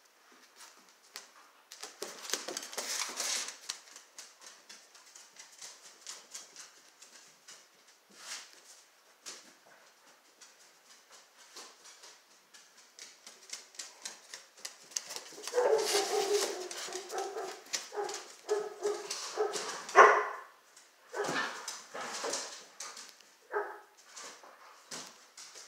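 Two poodle-type dogs playing, barking and whimpering. A long run of calls comes in the second half and ends in one very loud bark.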